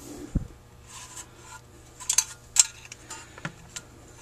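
Rochester 4GC carburetor's joined throttle body and float bowl being turned over by hand and set down on the workbench: a dull thump about half a second in, then a few sharp metal clinks and taps around two seconds in and once more a second later.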